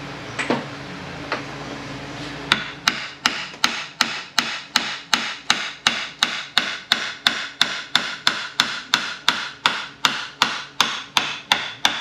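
Air impact wrench hammering slowly and evenly on a nut of a Jeep 231J transfer case, about three blows a second with a metallic ring. The blows start a couple of seconds in after two light clicks. The slow rate is the sign of a starved air supply from a struggling shop compressor.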